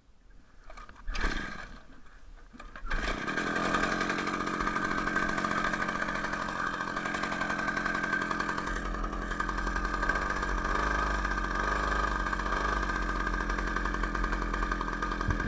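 Cold two-stroke Ural chainsaw engine on a homemade moped being started: a short first attempt about a second in, then it catches about three seconds in and runs steadily.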